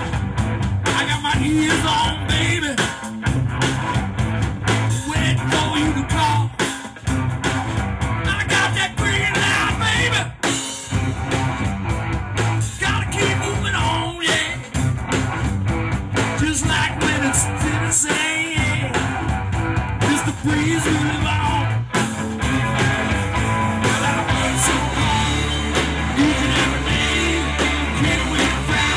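Live band playing a country-rock song: guitar with a strong bass line and a man singing.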